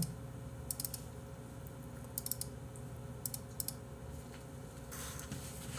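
Computer keyboard typing: short clusters of a few key clicks every second or so, over a faint steady hum.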